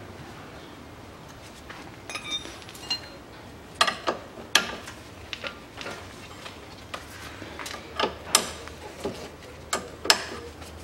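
Hand tools and metal parts clinking and knocking irregularly as the tie rod end is undone on an ATV's front steering knuckle, a few of the knocks ringing briefly.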